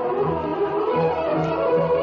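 Orchestral music: bowed strings playing over a steady beat of repeated low notes.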